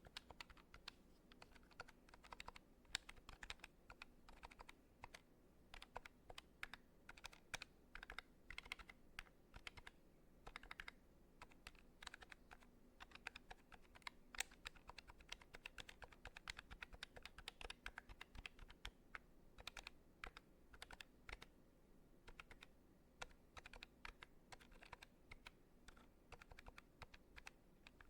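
Buttons pressed and clicked rapidly and irregularly, sounding much like typing on a keyboard, with many quick soft clicks close to the microphone.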